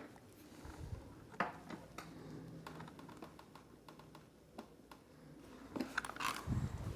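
Small metal hand wrench and bolts being handled while tightening motorcycle windscreen bolts: scattered light clicks and taps, with a quick run of clicks and a low thump near the end.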